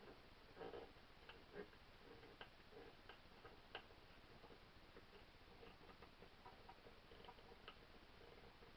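Faint, irregular small clicks and taps of parts being handled and fitted during reassembly of a Winchester 1977XS air pistol, a few sharper ticks standing out in the first four seconds.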